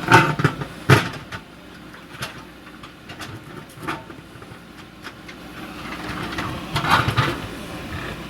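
JCB backhoe loader's diesel engine running steadily while the bucket breaks up old concrete, with sharp knocks and clanks at the start, about a second in, and again in a cluster about seven seconds in.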